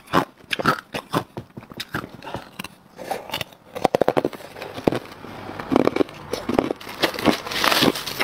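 Hard clear ice being bitten and chewed, a series of sharp crunching cracks. Near the end there is a steadier crackling rustle of crushed ice being stirred by fingers in a plastic tub.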